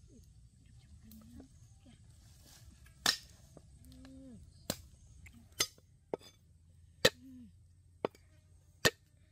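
A blade chopping on a cutting board in single sharp strikes, about seven of them from about three seconds in, roughly a second apart and unevenly spaced. Low voices murmur in the background.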